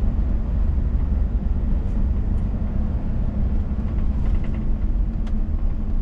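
Steady low rumble inside the cab of a Scania S500 truck driving at speed: engine drone and road noise.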